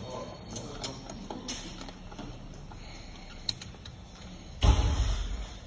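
A Fluke 87 digital multimeter being handled: a few scattered clicks from its buttons and rotary selector switch as it is set to continuity, with a louder thud and rub of handling near the end.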